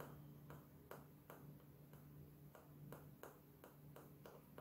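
Faint, irregular light taps, about two or three a second, on a small plastic container tipped over a digital scale, shaking LB agar powder out a pinch at a time.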